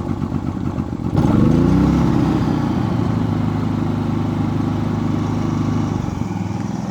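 Harbor Freight Predator 3500 inverter generator's single-cylinder engine running just after electric start, with the eco throttle off. It runs rough at first, surges louder about a second in with its pitch sliding down as it settles, runs steadily, then drops to a slightly lower, quieter speed near the end.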